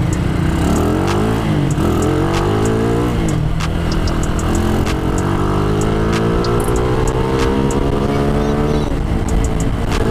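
Motorcycle engine pulling under throttle: its pitch climbs and drops twice in the first few seconds, then climbs steadily for about five seconds before dropping sharply near the end, like upshifts through the gears, over road and wind noise.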